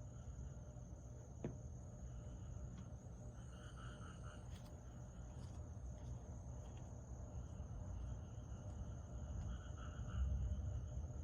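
Summer night insects chirping: a steady, high-pitched trill throughout, with a second, lower pulsed call twice, about four seconds in and near the end, over a low rumble. A single sharp click about a second and a half in.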